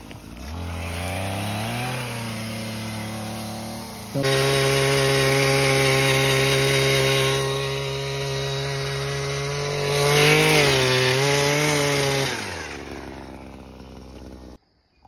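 Small gas power-tool engine running. It rises from a low speed in the first seconds, jumps to a louder, steady high speed about four seconds in, and surges briefly around ten seconds. It then winds down in pitch and fades away near the end.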